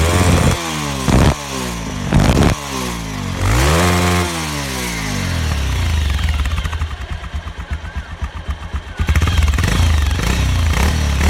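Bajaj Pulsar 220's single-cylinder engine blipped through several quick revs through its exhaust with the dB killer (baffle) removed, then dropping back to a lumpy idle about halfway through and running louder again near the end.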